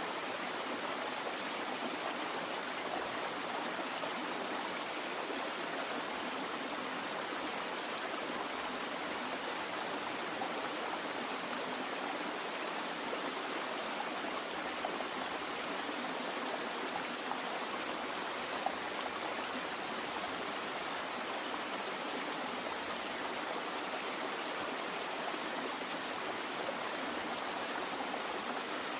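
Running water flowing steadily, an even continuous rush with no breaks.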